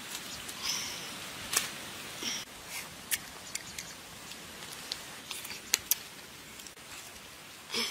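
Someone eating soft ripe mango: scattered wet smacks and clicks of biting and chewing at uneven intervals.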